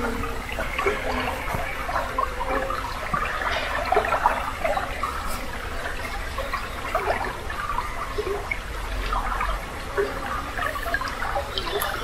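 Spring water flowing and babbling steadily, a continuous trickling and gurgling.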